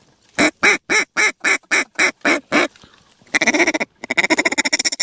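Hunter's mallard duck call blown as a string of nine loud, evenly spaced quacks, followed by a fast rapid-fire chatter like a feeding chuckle, calling ducks in to the decoys.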